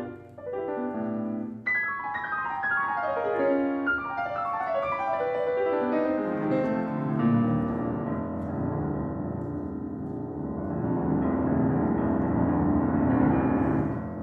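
Solo piano playing rapid descending runs, one cascade after another, then a dense, churning passage in the low register that swells louder toward the end.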